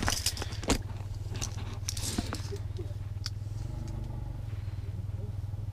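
A tape measure being pulled out and laid along a fish, with a few sharp clicks and rattles in the first couple of seconds, over a steady low rumble.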